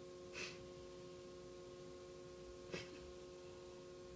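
A sleeper breathing: two short, faint, breathy snorts, about half a second in and again near the three-second mark, over a steady background hum.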